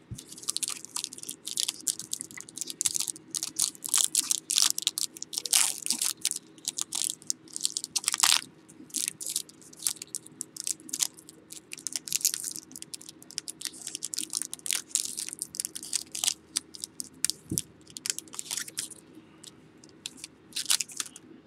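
Crinkling and crackling of foil trading-card pack wrappers being handled and torn open, a continuous run of irregular sharp crackles. A faint steady hum sits underneath.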